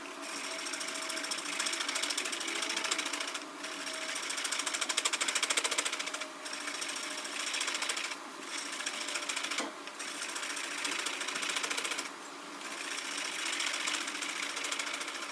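Wood being turned on a spring pole lathe: a chisel cutting the spinning workpiece with a rapid, chattering scrape, in stretches of two to three seconds broken by short pauses.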